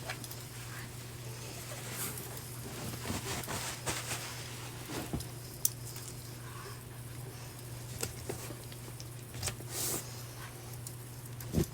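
Soft rustling with scattered light taps and scuffs from wolfdog puppies being handled and moving in their bedding, over a steady low hum.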